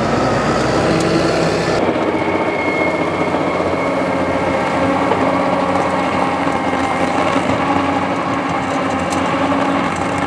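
Tractor engine running steadily under load while pulling a SoilKee Renovator through pasture. The sound changes abruptly about two seconds in.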